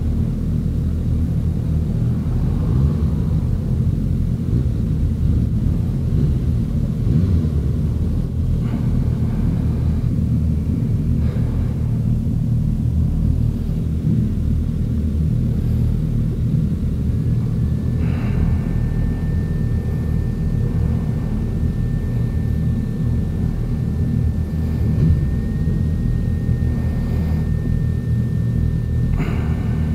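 Suzuki GSX-S1000F's inline-four engine idling steadily, with other motorcycle engines idling close by. A thin steady high tone comes in a little past halfway, and there are a few faint knocks.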